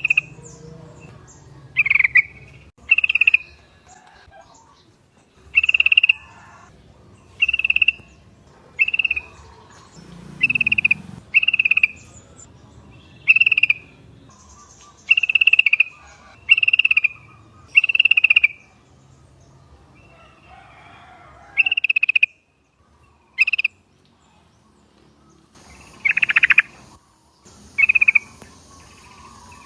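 Yellow-vented bulbul (trucuk) giving short chirping calls, all at about the same pitch, repeated every second or two with brief pauses. A longer, busier call comes near the end.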